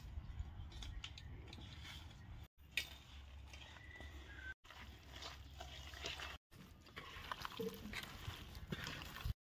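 Hands squishing and turning raw chicken pieces through a thick, wet masala paste with egg: faint sticky squelches and small clicks. The sound drops out briefly three times.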